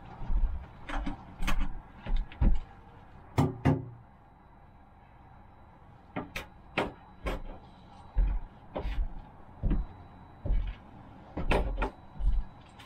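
A string of irregular knocks, clunks and thumps from handling in a cargo van's load area, where a pallet is being loaded, with a quieter spell about a third of the way in.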